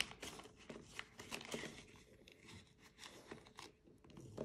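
Faint rustling and crinkling of paper dollar bills and clear plastic binder envelopes being handled, with many small irregular ticks and rustles.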